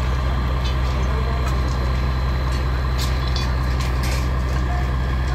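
Diesel engine of a railway track maintenance machine running steadily: a deep, even hum. A few faint clicks and knocks sound over it.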